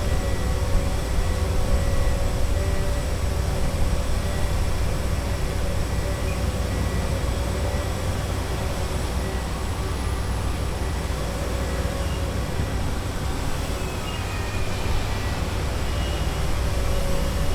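Steady city street noise: a low rumble of traffic with a constant machine hum running through it.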